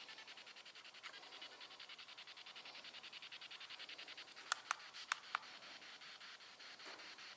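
Ghost box on low battery, sweeping the radio band: faint choppy static that ticks about a dozen times a second. Four sharp clicks come close together about halfway through.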